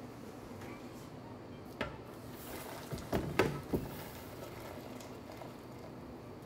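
Stainless steel stockpot knocking and clanking against a steel hotel pan while boiling water is poured from it onto dry couscous. There is a single knock near the start and a quick cluster of clanks around the middle, the loudest about three and a half seconds in.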